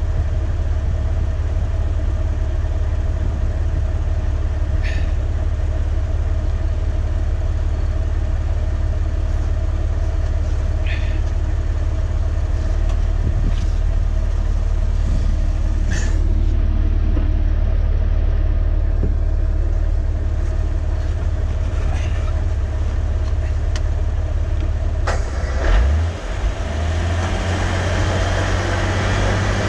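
Off-road vehicle's engine idling steadily, heard from a camera mounted on the body, with a deep rumble and a few sharp clicks. Near the end there is a loud knock, and the engine sound then rises and carries a higher steady note.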